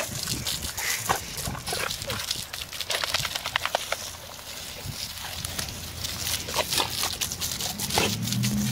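A large mastiff-type dog snapping and biting at the spray from a garden hose: the water hisses and splatters, with many short sharp snaps and splashes as the jaws close on the jet.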